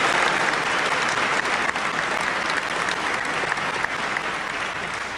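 Large audience applauding, the applause slowly dying down toward the end.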